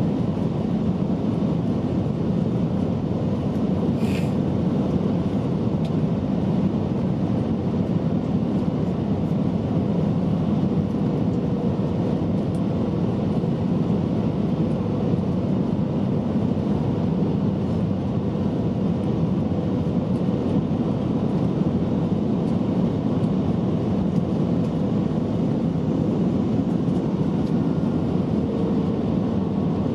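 Steady cabin noise of a jet airliner on final approach, heard from a window seat over the wing: an even rush of engines and airflow over the extended flaps. A brief high-pitched sound stands out about four seconds in.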